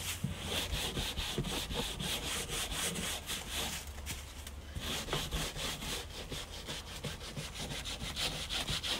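Stiff hand brush scrubbing stripper-soaked textured cedar weatherboard in quick, repeated back-and-forth strokes, working the softened tinted acrylic finish out of the grain.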